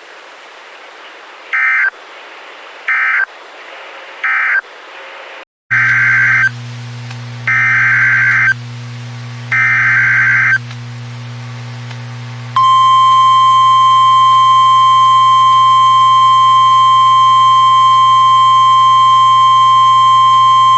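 Emergency Alert System data tones. First come three short SAME end-of-message bursts closing one warning. After a brief cut, three longer, louder SAME header bursts open the next warning over a low electrical hum. About twelve seconds in, the steady, loud 1050 Hz NOAA Weather Radio warning alarm tone begins.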